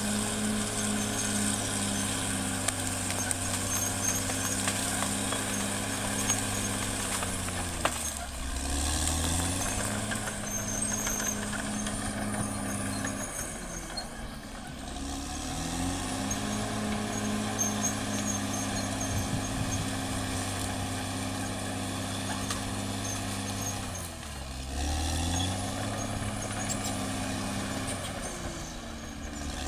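Caterpillar D6R XL bulldozer's diesel engine working, its pitch sinking and then climbing back three times as the machine is worked, with a faint high whine running alongside.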